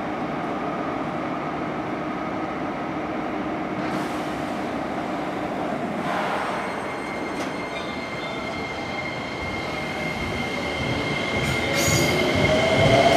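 JR 205 series 5000-subseries electric train starting off from the platform. A hiss comes in about four seconds in, and near the end a rising motor whine grows louder as the train gathers speed.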